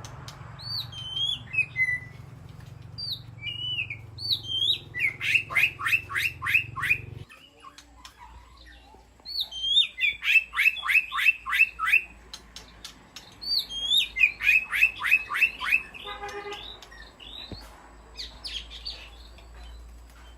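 White-rumped shama singing. It repeats the same phrase three times: a few clear whistled notes that slide up and down, then a quick run of about eight sharp, down-slurred notes.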